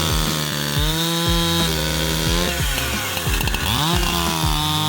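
Petrol chainsaw running and cutting wood. Its engine note sags and picks back up several times as the chain bites into the wood.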